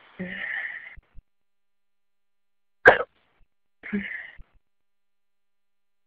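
A person hiccups once, sharply, about three seconds in. This is the loudest sound. Short moans come near the start and again about a second after the hiccup.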